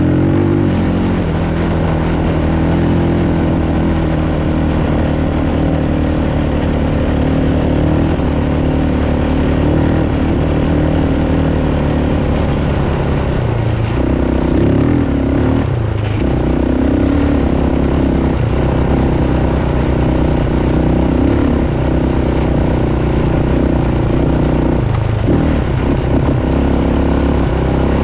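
Off-road vehicle engine running steadily under throttle along a sandy track, with wind and tyre rush, easing off briefly about halfway through and again near the end.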